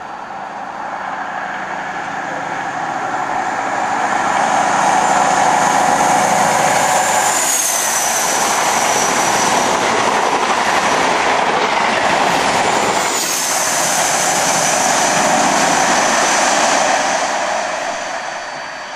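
InterCity 125 High Speed Train passing at speed: the diesel engine of the leading class 43 power car grows louder and its high whine drops in pitch as it goes by about seven seconds in. The coaches rush past, and the rear power car passes with a second falling whine about thirteen seconds in, then the sound fades.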